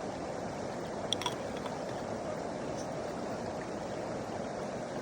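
River water rushing with a steady, even noise, with a couple of brief clicks about a second in.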